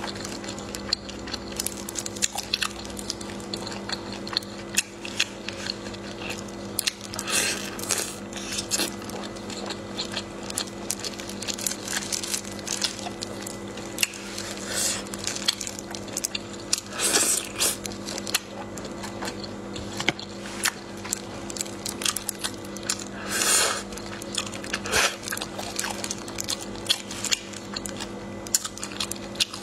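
Close-up eating sounds: wet squishing and smacking of sauce-soaked food in gloved fingers and mouth, with many small clicks and a few louder wet slurps spread through. A steady low hum runs underneath.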